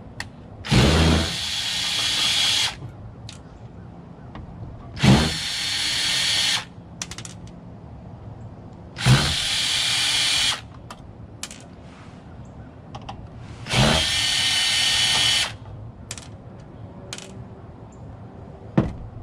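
DeWalt cordless drill-driver with a Phillips bit, run in four bursts of about two seconds each to back out screws. Each burst quickly rises in pitch as the motor spins up, then holds steady. A single sharp click comes near the end.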